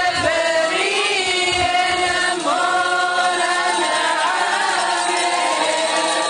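A group of voices chanting a Syriac church hymn together, in long held notes that bend slowly in pitch.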